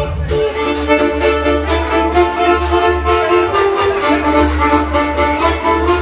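Live party band playing: long held melody notes over a steady bass beat.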